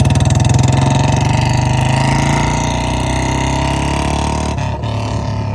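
Royal Enfield Classic 350 single-cylinder engine through a modified short-bottle silencer, running with loud, evenly spaced exhaust thumps that slow and soften as the bike eases off. About four and a half seconds in it drops suddenly to a lower, steadier running note.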